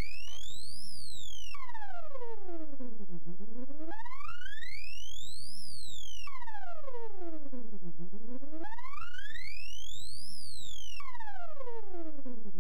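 Electronic sweep tone with overtones, gliding smoothly from a low pitch up to a very high one and back down, three rises and falls of about two and a half seconds each way, played as a test signal through a filter bank that splits it into frequency bands.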